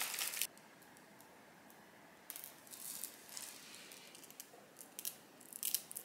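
A spoon stirring thick, sticky dough in a glass bowl stops about half a second in. A candy bag then rustles and mini M&M's are dropped onto the dough, with a scatter of light clicks and taps near the end.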